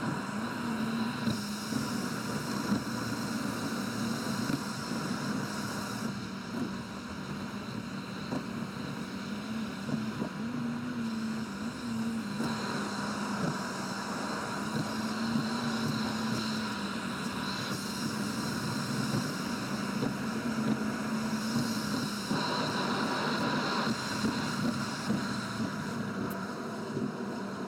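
A car's driving noise heard from inside the cabin, sped up six times: a steady rush of tyre and engine noise with a wavering hum underneath.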